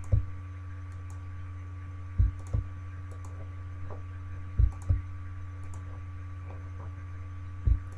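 Computer mouse clicks in pairs, a sharp click and a second one about a third of a second later, roughly every two and a half seconds. The pairs fit Alt-clicking to sample with the healing brush and then clicking on a speckle to heal it. A steady low electrical hum runs underneath.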